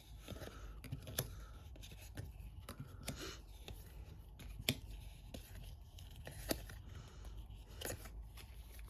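Faint, scattered crinkling and light clicks from a trading-card booster pack and its packaging being handled.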